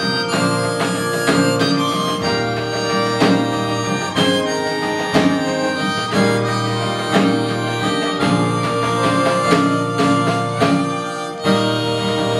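Fiddle playing a melody over a strummed acoustic guitar, with the strums falling about once a second. The music drops briefly near the end and then comes back in.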